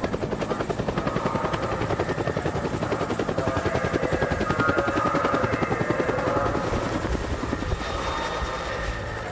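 Helicopter rotor chopping at a fast, even beat, fading slightly near the end.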